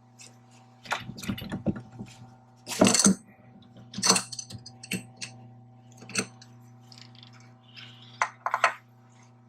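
Hand tools and metal parts clinking and clanking in irregular knocks, the loudest about three and four seconds in, over a steady low hum.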